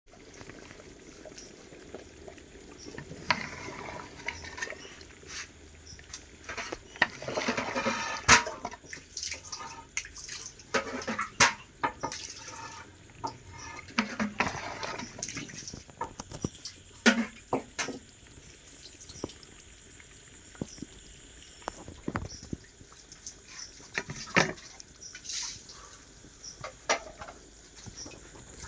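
Kitchen cooking sounds: liquid splashing and pouring, broken by irregular knocks and clinks of utensils against cookware.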